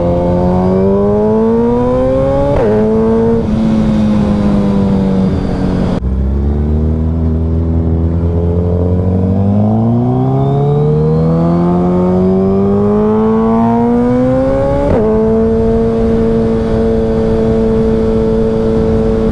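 Suzuki Hayabusa's inline-four through a Brock's Performance aftermarket exhaust, accelerating through the gears: the pitch climbs, drops at each upshift, then holds steady while cruising.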